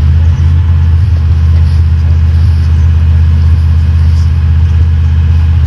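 Nissan 4x4's engine held at steady high revs, a loud low drone.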